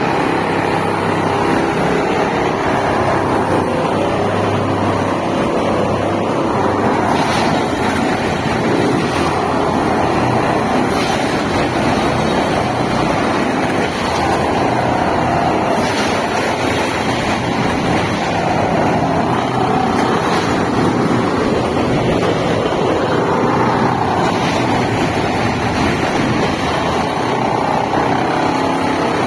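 Plasser & Theurer Unimat rail track tamping machine working: a steady, loud mechanical din of its diesel engine and hydraulics, with a few faint knocks now and then.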